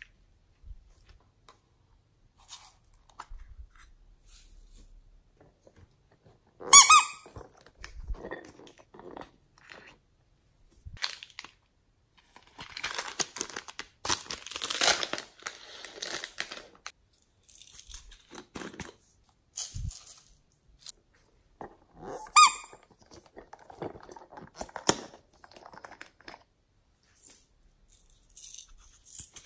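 Small plastic containers and a plastic sachet of slime add-ins being handled, with two loud squeaks about 7 and 22 seconds in. In between comes a stretch of plastic crinkling, and light clicks and rustles come through the rest.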